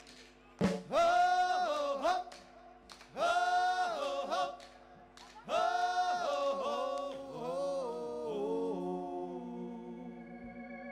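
A live band singing together, several voices with little or no instrumental backing: three loud, long held sung phrases, then a quieter sustained passage that fades near the end.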